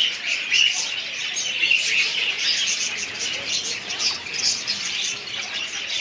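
A crowd of small caged finches chirping together: a dense, continuous twitter of many short high notes overlapping without a break.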